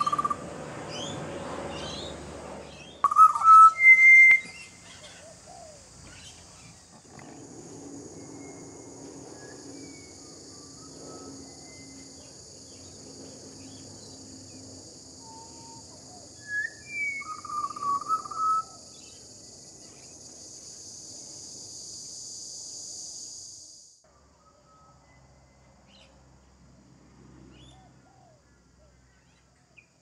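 Pied butcherbirds singing short, clear whistled notes in scattered phrases, loudest about three seconds in and again around sixteen to eighteen seconds. Through the middle runs a steady high hiss that stops suddenly.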